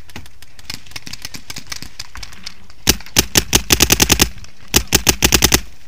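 Paintball markers firing: faint scattered pops, then two rapid strings of loud, sharp shots, about ten speeding up in under a second and a half, and about seven more just before the end.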